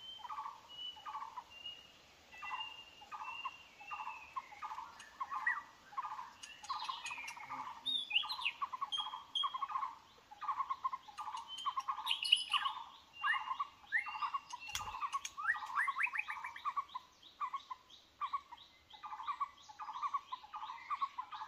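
White-rumped shama calling: a steady run of short, clipped notes about two a second, with higher whistled notes over them.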